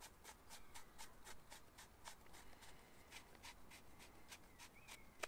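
Plastic rear section of a 13-pin euro towing plug being screwed onto the plug body by hand: a rapid, even run of faint clicks and scratches from the turning plastic threads, about six a second, stopping near the end.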